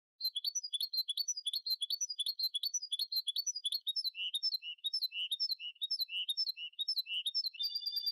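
Goldfinch × canary hybrid singing: a fast run of repeated chirping notes, some dropping lower about halfway through, ending in a short trill.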